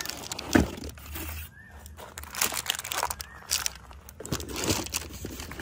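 Plastic wrapping and cardboard packaging crinkling and rustling as a film-wrapped roof crossbar is handled, with footsteps crunching on gravel and a sharp knock about half a second in.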